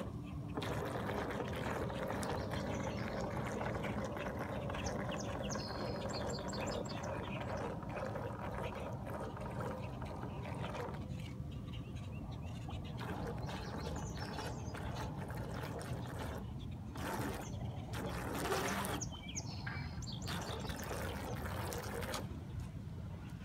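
Water trickling and churning around a radio-controlled model yacht as it runs slowly across calm water, with a faint steady hum from its motor. The noise swells briefly about three-quarters of the way through.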